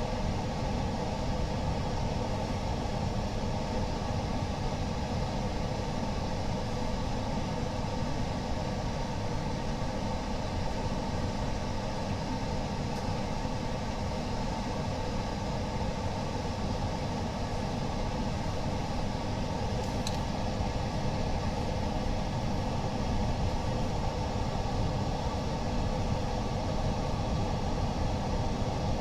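Steady low machine hum with no change in level, with a single faint click about twenty seconds in.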